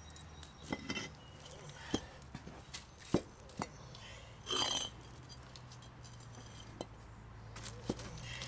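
Manufactured stone step treads being set dry and shifted into place by hand: scattered sharp stone-on-stone knocks and clinks, with a brief scrape about halfway through.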